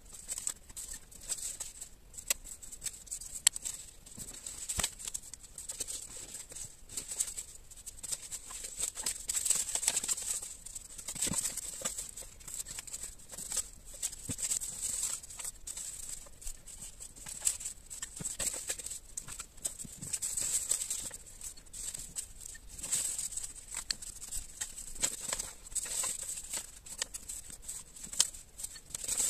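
Paper strips rustling and crinkling as they are lifted, folded back and laid down by hand, in irregular crisp bursts with occasional sharp taps.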